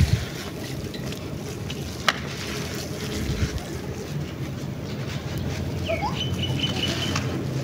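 Dry, grainy sand trickling and crumbling from a hand into a shallow pool of muddy water, over wind rumbling on the microphone. A single sharp click comes about two seconds in.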